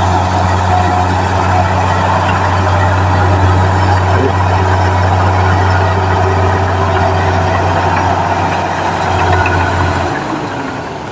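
Heavy vehicle engine running steadily with a deep, constant hum, easing off in the last second.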